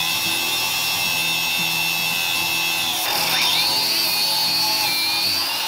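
Cordless angle grinder cutting through a steel tube: a steady high whine, with its pitch shifting upward about three seconds in.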